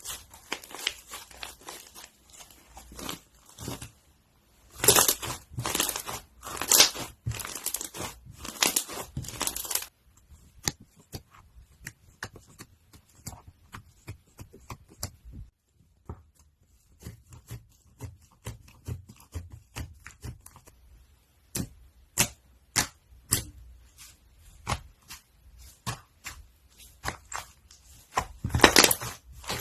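Crunchy slime being squeezed and worked, giving irregular crackles and pops. The crackling comes thickest and loudest for a few seconds early on and again near the end, with a brief lull in the middle.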